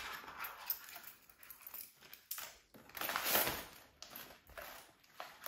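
Hands handling a clear plastic binder envelope and loose change: crinkling plastic rustles, the longest about three seconds in, with small clicks in between.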